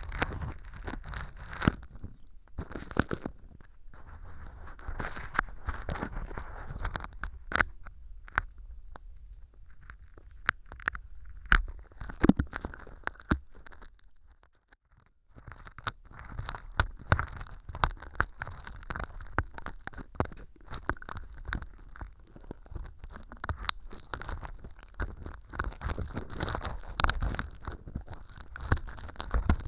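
Stainless-steel ear pick scraping and crackling through imitation earwax of styrofoam powder and sawdust inside a transparent ear-canal tube. Dense small clicks, pops and crunches are heard throughout. It drops almost silent for about a second midway.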